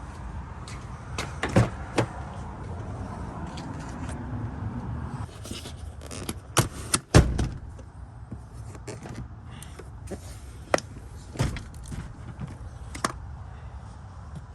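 Scattered clicks and knocks of hands working plastic interior trim and wiring in a vehicle's cargo area, with a louder cluster of knocks about halfway through.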